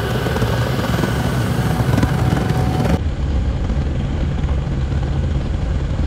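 Pressure-atomizing oil burner with a 4 gallon-per-hour nozzle firing a tilting hearth furnace at high power, running loud and steady. It is still short of combustion air, which is why it is loud. About halfway through the hiss on top drops away and the running sounds duller.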